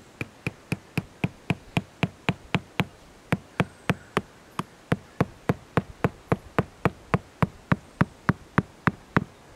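A tent peg being hammered into the ground with steady, sharp blows, about four a second, stopping just before the end.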